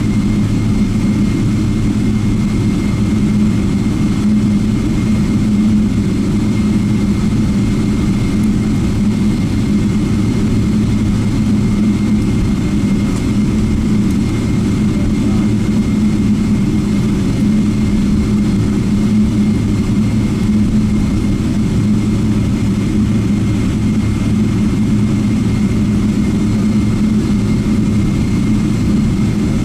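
Boeing 777-300ER's GE90-115B turbofan engines heard from inside the cabin at taxi power: a steady low drone with a faint, steady high whine on top.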